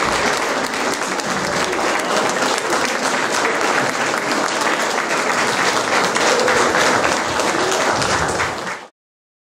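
Audience applauding steadily, a dense crackle of many hands clapping, which stops abruptly near the end.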